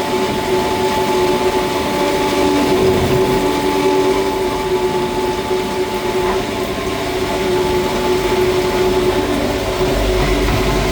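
Power flushing pump running steadily: a loud, constant motor hum with a fixed-pitch whine. A low rumble comes in near the end.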